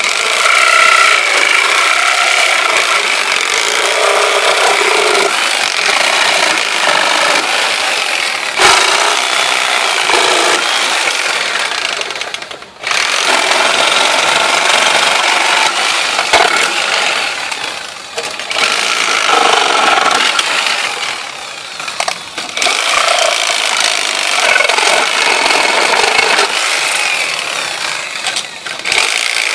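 Electric reciprocating saw with a long all-purpose blade cutting through the nails between a wooden pallet's slats and rail, running almost continuously with a short stop about halfway and a few brief dips after it.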